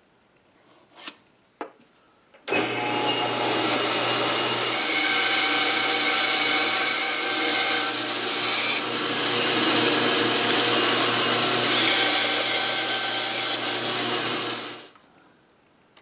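Bandsaw cutting a thin strip off a board, its steady motor hum under the noise of the blade in the wood. The saw starts suddenly about two and a half seconds in and dies away near the end. Two short knocks come before it.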